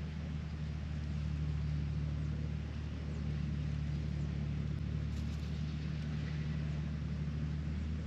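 A steady low mechanical hum with no change in pitch or level.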